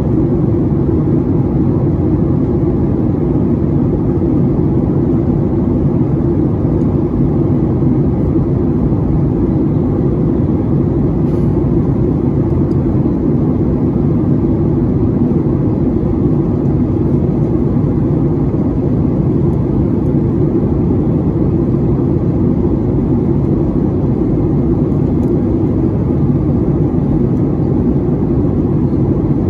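Steady in-flight cabin drone of a Boeing 737-800: its CFM56-7B engines and the rush of air along the fuselage, a loud, even low rumble that does not change.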